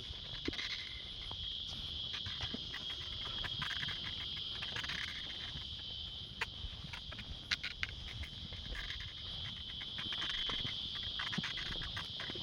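A steady, high-pitched insect chorus, with scattered faint clicks over it.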